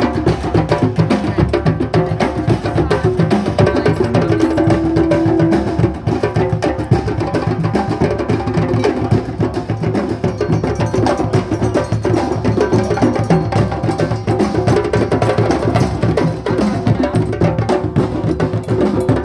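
Drum circle of many djembes and other hand drums playing together, with a dense, steady rhythm of overlapping hand strikes.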